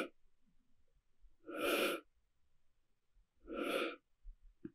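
A person breathing out audibly through the yogic exhale in separate soft puffs about two seconds apart, one stage after another: belly, diaphragm, upper chest.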